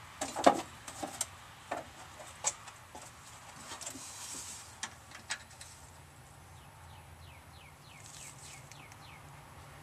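A few sharp metal clicks and knocks as a hand tap and wrench are handled at a steel frame, the loudest about half a second in. A short hiss of WD-40 sprayed from an aerosol can follows near the middle. Then a bird gives a quick run of about ten falling chirps.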